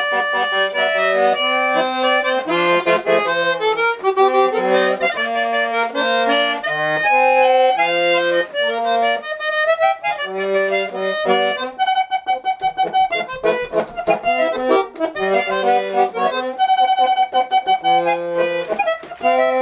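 Small button accordion playing the melody of a children's song over chord accompaniment, with a stretch of quick repeated chords about twelve seconds in.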